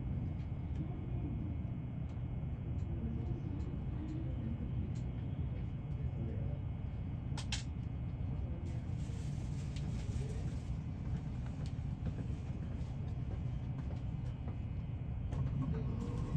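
Steady low rumble inside a stopped E657-series limited express train carriage, with a single sharp click about seven seconds in and a brief high hiss a little after it.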